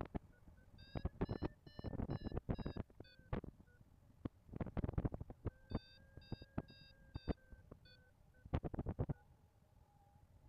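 Paragliding variometer beeping in quick short pulses, about four a second, the climb tone that signals rising air, in two runs. Heavy wind buffeting on the microphone comes in loud gusts throughout.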